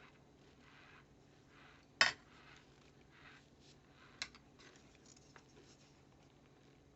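Chewing on chunks of microwave-baked cornstarch: soft, regular crunches, with a sharp click about two seconds in and a smaller one about two seconds later.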